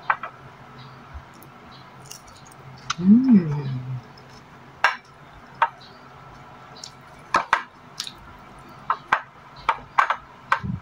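Eating by hand from ceramic bowls: a scattering of sharp clicks and light clinks, about a dozen in all. About three seconds in there is a short hummed 'mm' that rises and falls in pitch.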